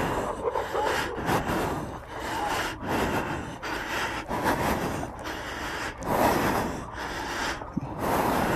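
Heavy, ragged breathing with rough rubbing and handling noise on a handheld phone's microphone. It comes in uneven surges with short lulls, with no distinct shots or impacts standing out.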